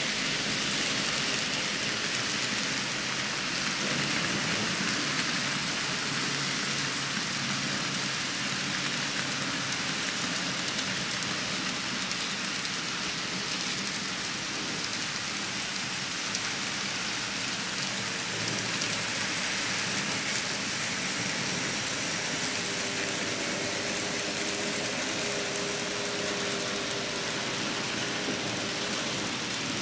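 Steady, dense rain-like hiss with no breaks, strongest in the upper range, with a faint low hum partway through.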